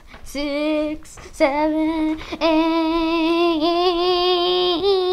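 A girl's voice singing three held notes, the last one drawn out for about three seconds with small shifts in pitch.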